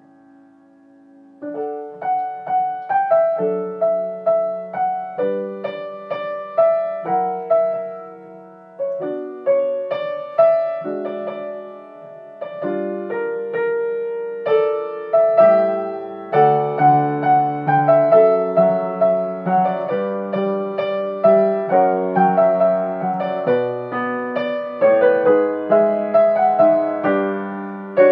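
Grand piano played solo: a pop-song arrangement with melody over chords. After a brief pause while a chord dies away, playing resumes about a second and a half in, and it grows fuller and louder about halfway through.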